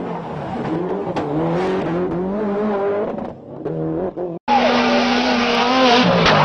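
Rally car engine revving up and down in steps, with some tyre squeal. About four and a half seconds in the sound cuts off sharply, then a louder car engine starts over a wide rush of noise.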